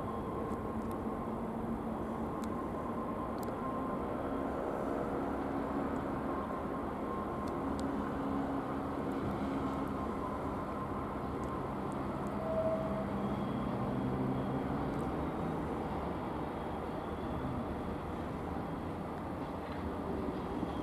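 Electric double-deck regional train approaching at low speed: a steady rumble with a low, even hum from its drive, growing a little louder toward the end as it nears.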